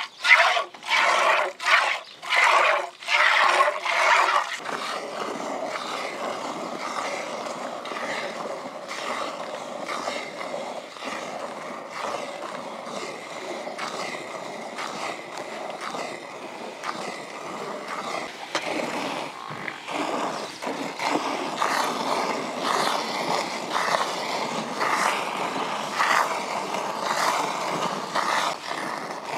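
Water buffalo being milked by hand into a steel pot: milk squirts in a steady rhythm of about two a second, loud and sharp for the first few seconds, then softer and more rushing.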